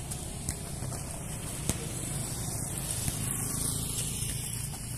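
A volleyball being kicked during a kick-volleyball rally: a couple of short, sharp knocks, the clearer one about a second and a half in. Underneath is a steady hiss.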